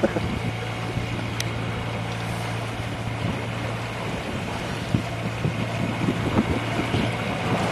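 Sailing yacht motoring at sea: a steady low drone from its auxiliary engine, with water rushing along the hull and wind buffeting the microphone in irregular low thumps.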